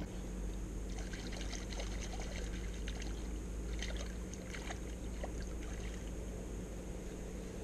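Small splashes and trickling water as hands work in the shallows at the bank, over a steady low rumble of wind on the microphone.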